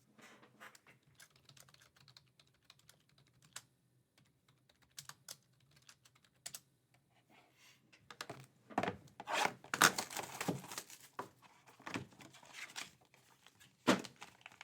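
Light scattered clicks from hands handling things at a desk, turning into a denser stretch of rustling and clicking about eight seconds in, with a few sharper clicks near the end.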